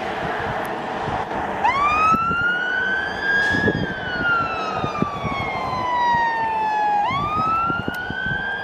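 Scania P280 fire engine's siren switching on about a second and a half in, over road noise: a slow wail that climbs for a couple of seconds, falls for about three, then sweeps up again.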